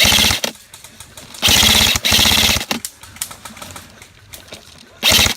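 Airsoft rifle firing on full auto in three loud bursts of rapid clicking: one ending about half a second in, a longer burst of about a second after that, and a short one near the end.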